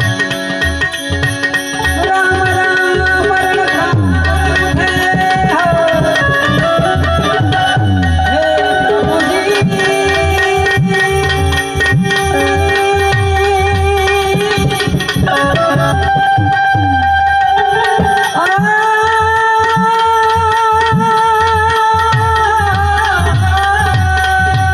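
Instrumental music: a harmonium melody in raag Bhairavi over a steady tabla rhythm. Near the end the held notes take on a wavering tremble.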